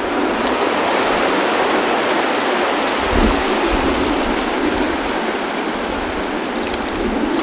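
Wind blowing dry leaves: a dense, steady rustle and crackle, with a stronger low gust of wind about three seconds in.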